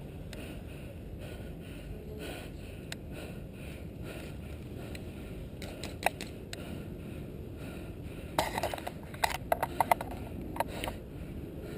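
Airsoft guns firing: scattered single sharp pops, then a quick run of rapid pops between about eight and eleven seconds in, over a steady rushing noise.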